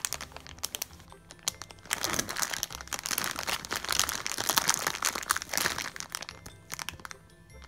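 Clear plastic packaging bag crinkling in irregular bursts as a large foam squishy toy is squeezed through it, with background music underneath.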